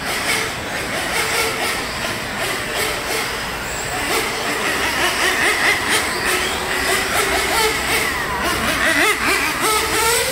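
1/8-scale nitro on-road RC racing cars (Serpent 748) lapping. Their small glow engines make a high buzz that rises and falls in pitch as they accelerate and brake, with a few quick rising revs near the end.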